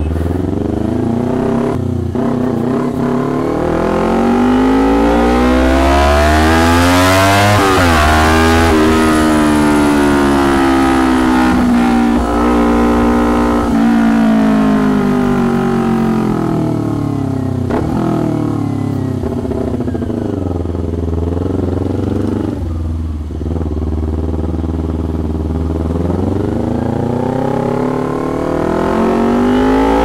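2019 Kawasaki Ninja 250's parallel-twin engine running through a very noisy, tinny custom exhaust on the road. The pitch climbs under throttle to a sharp gear change about eight seconds in, falls away slowly as it eases off through much of the middle, and climbs again near the end.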